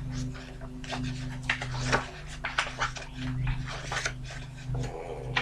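Glossy pages of a book being flipped and handled, with a string of short, crisp paper rustles, over a steady low hum.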